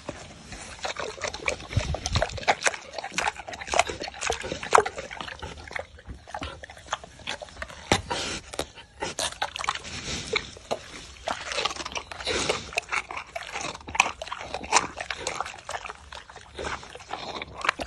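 A sow eating melon, rind and flesh, held to her mouth, chewing in a long run of irregular crunching bites.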